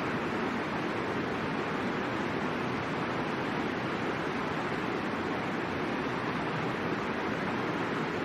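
River water rushing, a steady even hiss that does not change.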